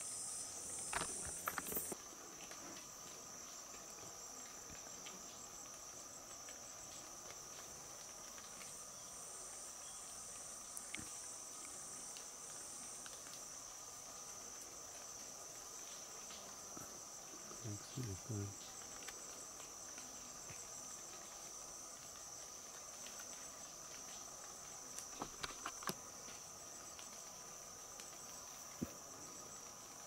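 Steady chorus of rainforest insects: a continuous high-pitched trill with a lower steady drone beneath it. A further high layer drops out about two seconds in, and a few faint clicks come through.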